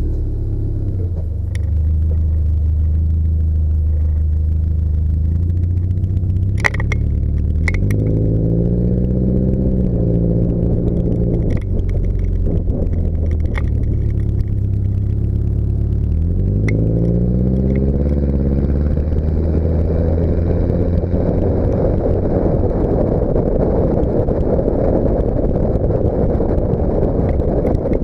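Subaru Baja's flat-four engine running through a single-stack exhaust while the vehicle drives. The exhaust note climbs in pitch twice as it accelerates, about 8 and 16 seconds in, then holds steady under a growing rush of wind and road noise. A couple of sharp clicks come about 7 seconds in.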